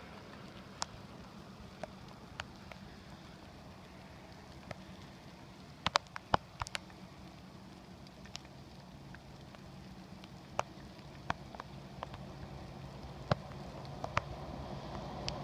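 Mini bicycle hand pump clipped onto an inner-tube valve, worked by hand to inflate a road-bike tyre: a faint hissing haze with scattered sharp clicks.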